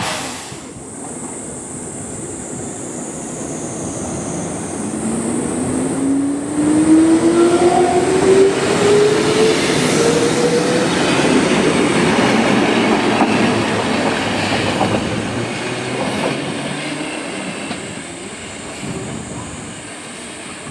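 Tama Densha electric train of the Wakayama Electric Railway running past on the track, wheels clattering over the rails. A whine rises steadily in pitch for several seconds. The sound builds to its loudest in the middle and eases off toward the end.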